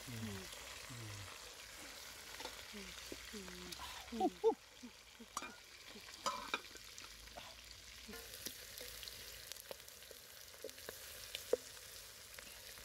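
A pot of chicken and taro in broth simmering and bubbling over a wood fire, with a steady hiss and many short bubbling blips. Scattered knocks and scrapes of utensils against the steel pot and plate, loudest about four to six seconds in.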